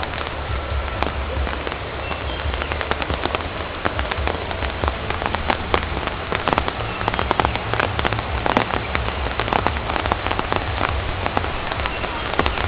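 Steady rain with many sharp drop ticks that come thicker from about a third of the way in, over a low rumble.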